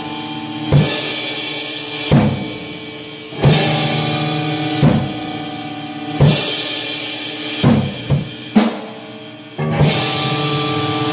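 Music: slow, heavy drum beats about every second and a half over sustained chords. Near the end three quicker beats fall together, then a louder, fuller chord comes in.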